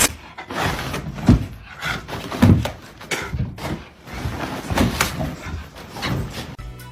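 A series of irregular dull thumps and knocks, about half a dozen over several seconds, in a small room.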